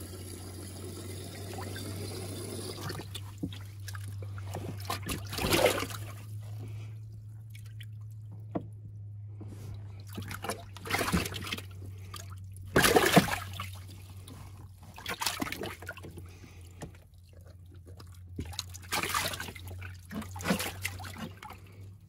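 Water splashing and trickling in a bass boat's livewell, with several sharper splashes, the loudest about two-thirds of the way through, over a steady low hum.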